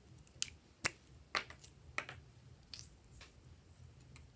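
A handful of sharp clicks and taps from lipstick cases being handled, as a cap is pulled off and the tube twisted open.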